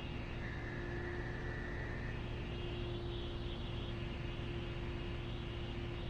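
Electric fuel lift pump of a 7.3 Powerstroke diesel running with the key on to prime the fuel bowl: a steady hum with one constant tone, no engine cranking yet.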